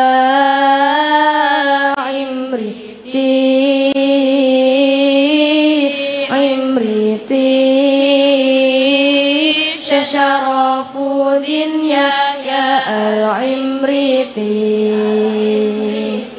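A large group of girls chanting in unison in the lalaran style, with a slow melodic line of long held notes that bend gently in pitch and short breaks for breath between phrases.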